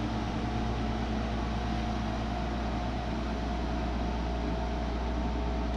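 Boat motor running steadily: an even drone with a few constant low hum tones and a hiss over it.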